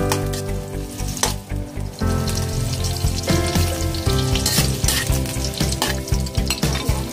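Sliced onions sizzling in hot oil in an aluminium wok, stirred with a metal ladle that knocks and scrapes now and then. Background music with a steady beat plays throughout.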